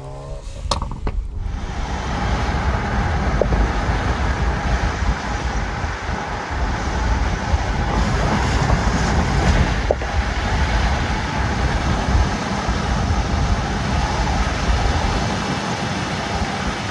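Car driving at speed: steady rush of road and wind noise with a deep low rumble, swelling up about a second and a half in.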